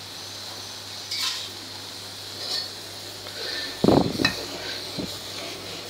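A steel ladle stirs melted butter in an aluminium pot, scraping and clinking against the pot about four seconds in, with a smaller knock a second later. Under it is a steady low hiss from the butter heating on the gas flame as it is cooked down into ghee.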